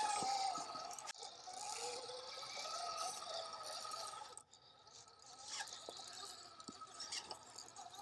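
Axial SCX6 RC crawler's electric motor and drivetrain whining, wavering in pitch, over a gritty scraping of tyres on rock. It stops about four seconds in, leaving faint clicks and rattles.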